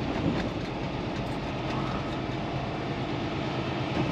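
Semi truck's diesel engine running at low speed, a steady drone heard inside the cab as the truck rolls slowly along.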